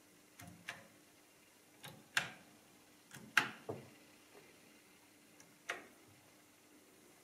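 Key clicks from the ELKA 6521 electronic calculator's keyboard: about ten short, sharp clicks, mostly in close pairs a third of a second apart, over a faint steady hum.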